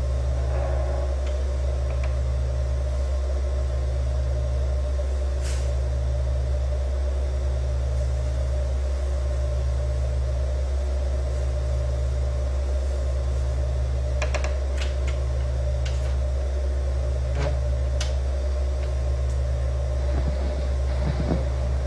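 A steady, loud low hum with a faint pulse about once a second, and a few faint clicks scattered through it.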